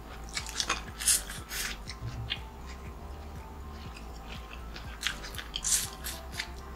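Close-miked eating: a person biting and chewing crisp food with crackly crunches, in two spells, near the start and again about five seconds in.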